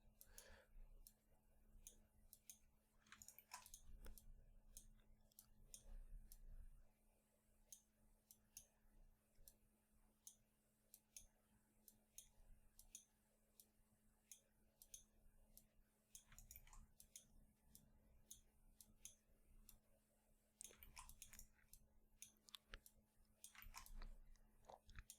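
Near silence with faint, scattered computer mouse clicks and a faint steady hum.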